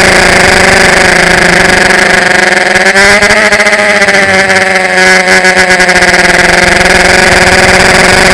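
Electric motors and propellers of a small FPV aircraft, a loud steady whine heard through the onboard camera's microphone. The pitch wavers and dips a little midway, then steadies.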